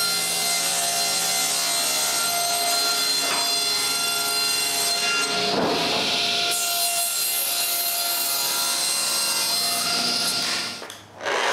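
Power saw running and cutting wood, a steady motor whine under the noise of the blade in the wood, as drawer bottoms are cut to size. The sound dips briefly near the end.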